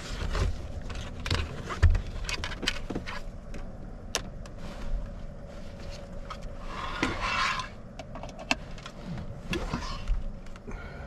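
Rummaging among gear and a fan's power cord to plug it in: scattered clicks, knocks and scrapes of handled objects, a sharp knock about two seconds in and a short rustle about seven seconds in.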